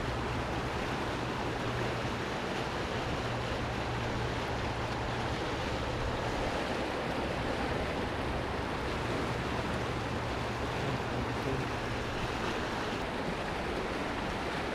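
Fast-flowing mountain river rushing over rocks and riffles: a steady wash of water noise.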